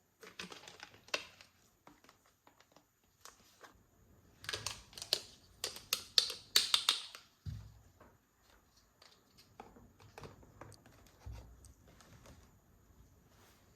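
Miniature plastic toy pieces and their packaging being handled: scattered light clicks, taps and rustling, busiest and loudest from about four to seven seconds in.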